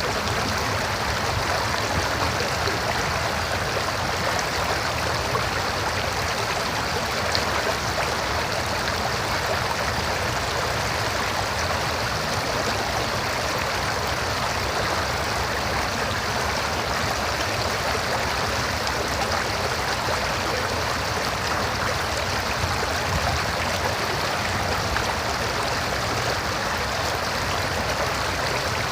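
River water flowing over rocks, a steady rushing and gurgling.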